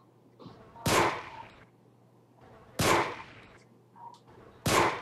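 Three pistol gunshot sound effects, about two seconds apart, each a sharp crack with a short fading tail.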